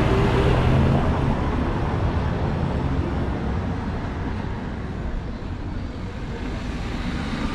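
A passing motor vehicle's engine fades away in the first second or so, leaving a steady hiss of road traffic.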